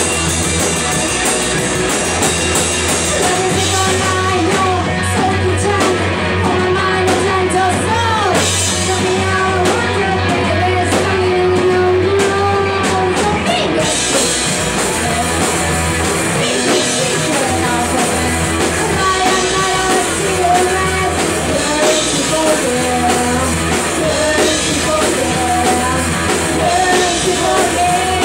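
Live rock band playing loud: electric guitars and drum kit, with a singer's voice over the top.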